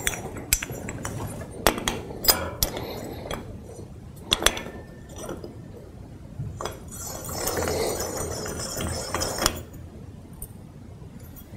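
Brass bed finials being handled and screwed onto the posts of a wrought iron bedstead: a scatter of sharp metallic clinks, then a longer stretch of scraping and rubbing about seven seconds in.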